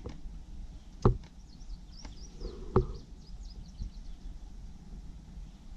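Two short knocks, about a second in and again near three seconds, over a faint steady background with faint high chirping.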